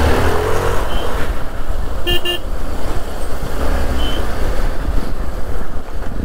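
Motorcycle on the move, a steady low rumble. A vehicle horn gives two quick toots about two seconds in.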